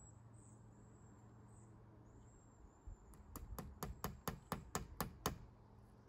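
Hammer tapping a nail into a wooden door frame to pin bug screen, about nine quick light taps at roughly four a second, starting about three seconds in.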